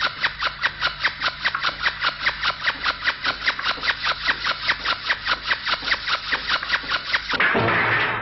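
Cartoon sound effect of rapid, even clicking, about five or six clicks a second, cut off about seven seconds in by a short, louder rushing noise.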